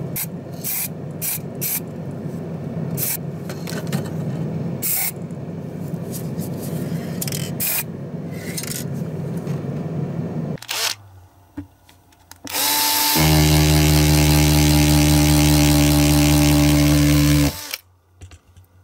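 Abrasive blasting in a sandblasting cabinet: a steady hiss of blast media with scattered sharp ticks for about ten seconds, then it stops. About two seconds later a loud, steady machine hum with a whine starts, runs about five seconds and cuts off suddenly.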